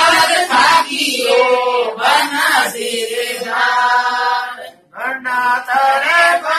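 Voices singing a chant-like song, with long held notes and a short break near the end.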